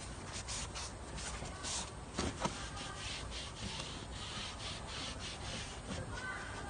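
A cloth wiping along a car sunroof's rubber seal, a soft irregular rubbing, cleaning out the grit that makes the seals squeak.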